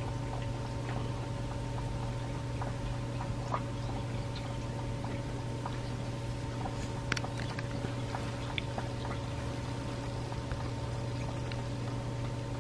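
Kittens suckling at their mother: soft, scattered wet clicks and smacks over a steady low hum.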